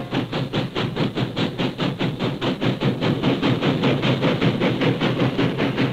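Norfolk & Western J-class 4-8-4 steam locomotive running at speed toward and past the listener: a steady, rapid beat of about five exhaust and running-gear strokes a second over a hiss of steam, growing a little louder as it nears.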